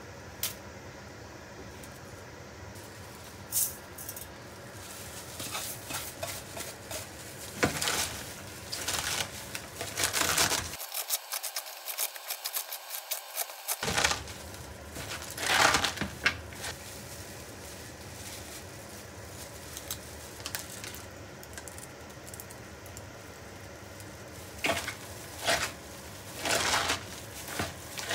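Kitchen work sounds: irregular clinks, knocks and short scrapes of utensils and dishes being handled, with brief busier stretches between quieter pauses.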